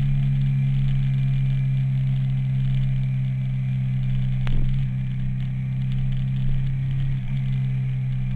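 Motorcycle engine running at a steady pitch while cruising, with wind rush over the bike-mounted camera. A single sharp knock about four and a half seconds in.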